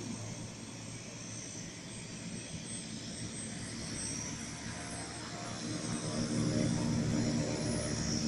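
Aircraft engines of a formation flying past overhead, a steady low drone that grows louder about six seconds in.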